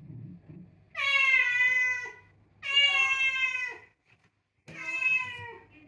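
A white domestic cat meows three times at a closed sliding door, toward a person on the other side. Each meow lasts about a second and drops in pitch at the end.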